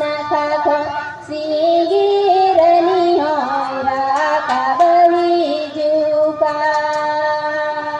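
A woman singing a Santali song solo into a microphone, with no accompaniment. She holds long notes with quick ornamental turns in the middle and ends on a long sustained note.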